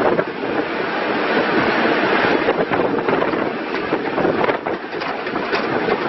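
Komatsu WB156PS-5 backhoe loader's diesel engine running, with scattered rattles and wind buffeting the microphone.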